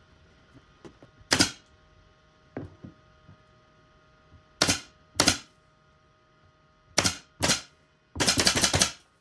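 Pin nailer firing pins through a plywood edge guide: a sharp single shot about a second in, two around five seconds, two more around seven seconds, then a longer rattling burst near the end.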